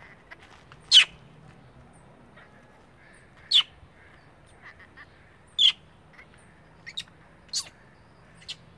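Baby long-tailed macaque crying: short, sharp, high-pitched squeaks repeated every one to two seconds, the first the loudest.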